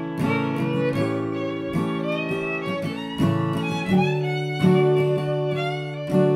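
Background music: an improvised fiddle tune.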